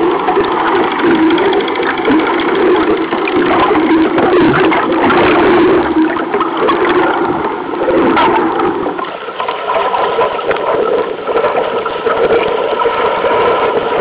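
Muffled rushing and gurgling of water heard from a camera submerged beside a Solo sailing dinghy's hull, with a dip about nine seconds in.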